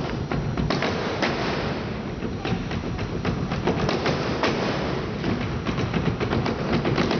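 A line of percussionists beating long wooden staffs on the stage in a fast, dense clattering rhythm, with sharper knocks standing out now and then.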